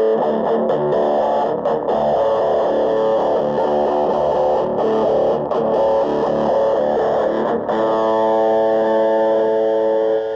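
Electric guitar played through the IK Multimedia iRig Nano Amp's 3-inch speaker: a stretch of changing notes, then a chord held ringing for the last couple of seconds.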